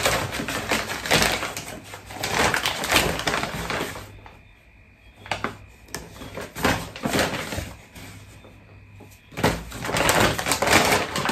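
Brown paper bag rustling and crinkling as it is handled and a hand reaches inside. The noise comes in bouts: loud for the first few seconds, sparse and quieter in the middle, and loud again near the end.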